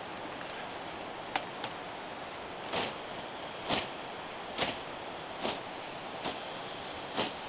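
A hand tool striking, in a steady series about one blow a second beginning a few seconds in, preceded by a couple of lighter clicks, over a steady hiss.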